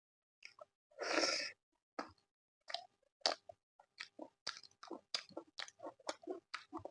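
A person chewing a mouthful of food close to the microphone: one louder noisy burst about a second in, then a run of short mouth clicks, about three to four a second.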